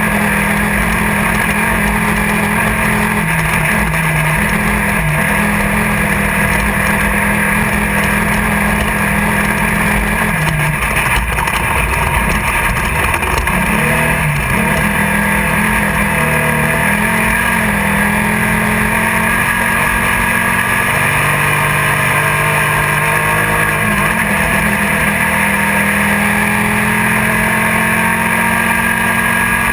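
Class 1600 off-road race buggy's engine running hard at speed, heard from inside the car, over a constant din of driving noise. The engine note drops and climbs back a couple of times around the middle as the driver lifts off and gets back on the throttle.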